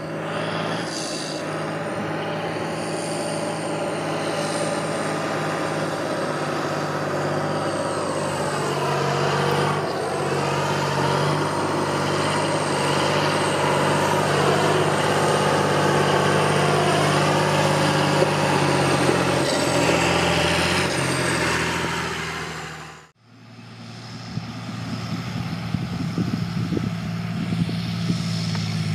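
John Deere 8100 tractor's six-cylinder turbo diesel running steadily at working revs, with a higher whine that drifts up and down in pitch. The sound cuts out abruptly about three-quarters of the way through. It comes back as the engine again with irregular sharp clicks and rattles.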